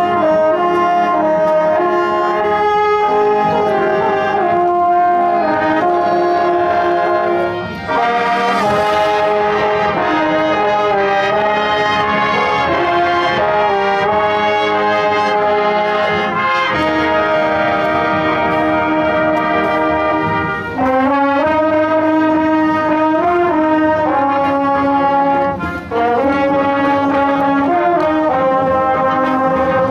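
School marching band brass playing a tune, with trombones loudest up close over tubas, trumpets and saxophones. The music pauses briefly between phrases a few times.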